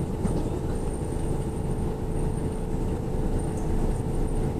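Okinawa Urban Monorail (Yui Rail) car running along its guideway on rubber tyres, heard from inside the cabin: a steady low rumble with a constant hum of several pitches.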